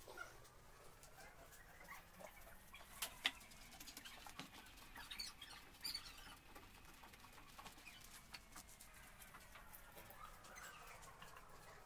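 Faint scraping and scattered small clicks of hands pressing and smoothing wet cement mortar against the inside walls of a box made of cement tiles, with a few sharper ticks between about three and six seconds in.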